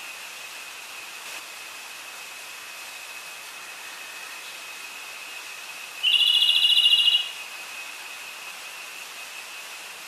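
A tledekan gunung (a blue flycatcher) sings one rapid, stuttering trill, just over a second long, about six seconds in. It sounds over a steady thin high whine and hiss.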